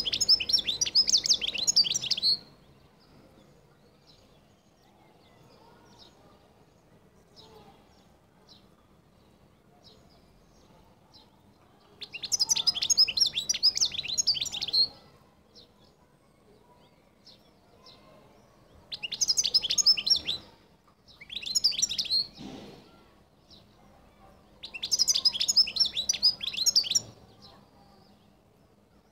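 European goldfinch singing: about five bursts of rapid, high twittering song, each one to three seconds long, separated by pauses of several seconds with only faint scattered notes.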